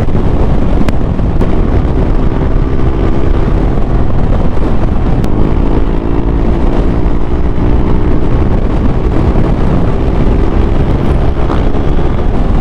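Honda Click 125i scooter's single-cylinder engine running while riding, its pitch drifting a little up and down, under heavy wind buffeting on the microphone.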